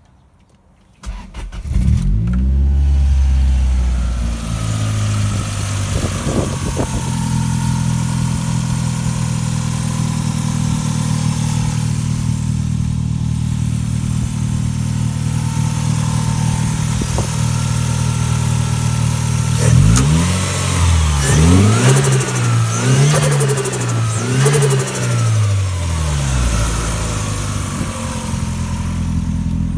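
Turbocharged Toyota 3S-GE inline-four in an Altezza starting about a second in with a brief rev flare, then idling steadily. About two-thirds through it is blipped four times in quick succession, the revs rising and falling each time, with the turbo fluttering as the throttle is let off, before it settles back to idle.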